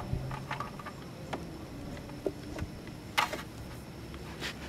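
Scattered light clicks and taps of a speedometer cable end being handled and fitted into the scooter's front-wheel speedometer drive, with a sharper click about three seconds in and another near the end.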